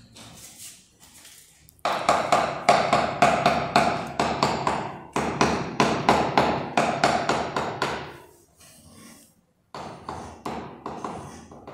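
Hammer striking over and over, about three blows a second, each with a short ringing tone. The blows stop for about a second and a half near the end, then start again more softly.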